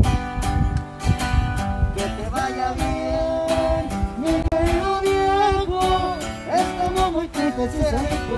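A twelve-string guitar strummed in a steady rhythm, with a voice singing a slow melody over it.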